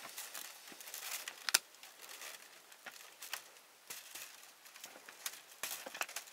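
Irregular light clicks, taps and rustles, with one sharp click about one and a half seconds in.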